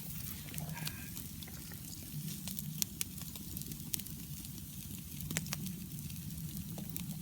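Bacon and cheese rolls frying in a pan on a camp stove: scattered sharp crackles and pops of fat over a steady low rumble.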